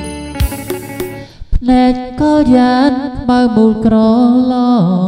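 Music: a singing voice holding long notes that slide in pitch at their ends, over a light accompaniment. There is a short break with a few clicks about a second and a half in.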